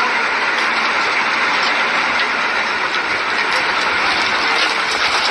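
Hydra mobile crane working under load as it lifts an overturned tipper truck upright: a loud, steady mechanical noise with faint clicks.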